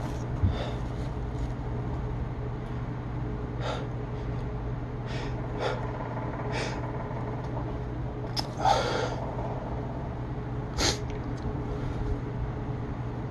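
Short, sharp nasal snorts and sniffs during a sneezing fit, about eight in all. A longer breathy sound with a falling pitch comes about eight and a half seconds in. A steady low hum runs underneath.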